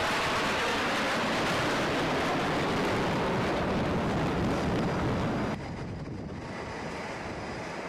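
Jet engine noise from fighter jets flying past, mixed with wind buffeting the microphone. About five and a half seconds in it cuts off abruptly to a quieter, duller steady rumble.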